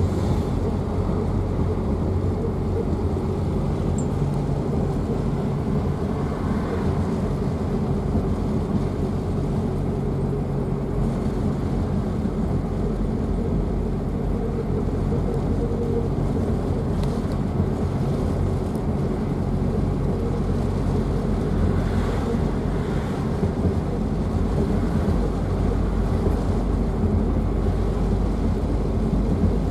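1953 Opel Olympia Rekord's four-cylinder engine running steadily as the car cruises, with tyre and wind noise.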